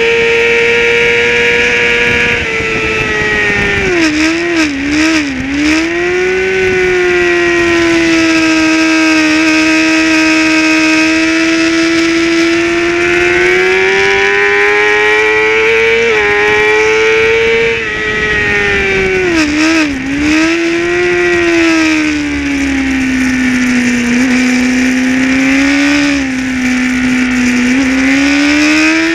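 Racing motorcycle engine at high revs, heard from onboard at full race pace, with wind rushing past. The engine note holds high, then drops in quick steps twice as the rider shifts down for corners, and climbs again as it pulls out.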